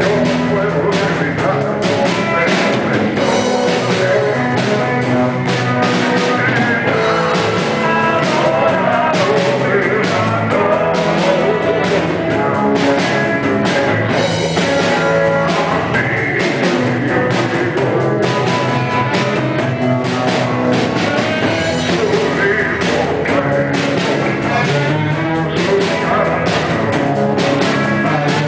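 Live rock and roll band playing: electric bass, electric guitar, drum kit and saxophone over a steady drum beat.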